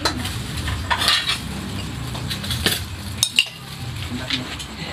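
Clinking and clatter of plates and serving spoons, a handful of sharp clinks scattered over a low steady background.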